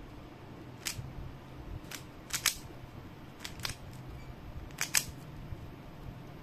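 Plastic Rubik's cube being turned by hand, its layers snapping round with sharp clicks every second or so, some in quick pairs, over a low steady hum.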